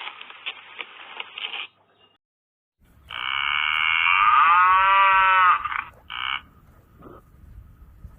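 Cow mooing: one long moo of almost three seconds that rises and then falls in pitch, followed by a short call. Before it comes a rough, noisy rasping that stops suddenly about two seconds in.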